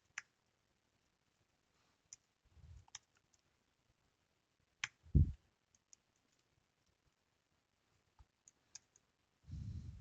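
Computer keyboard keys pressed one at a time, a few scattered clicks while a long password is typed in by hand, with one louder thump about five seconds in.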